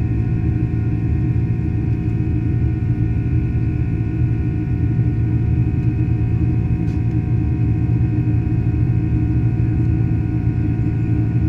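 Cabin noise of a Boeing 767-300 climbing after takeoff: the steady rumble of its turbofan engines and rushing air, with several steady whining tones held over it. A faint click comes about seven seconds in.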